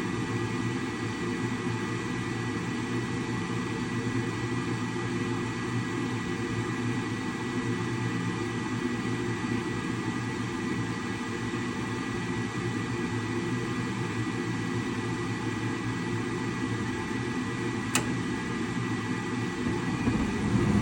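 Steady hum of a Rheem gas furnace's combustion air (inducer) blower running during the ignition sequence, with the hot surface igniter glowing. A single sharp click comes near the end.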